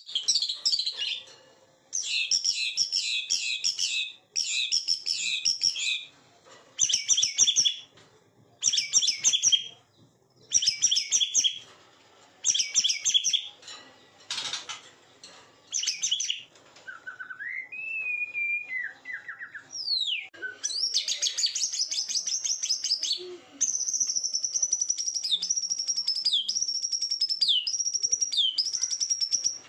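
A murai songbird singing: bursts of fast, high chattering song a second or two long, broken by short pauses, then a lower whistled phrase that rises and falls, and near the end a long high whistle with repeated downward dips. It is a provocation track, a murai song played to rouse other murai into singing.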